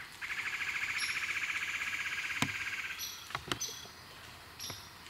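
A wild animal's rapid pulsing trill lasting about three seconds, with short high chirps repeating about once a second and a few sharp clicks near the middle.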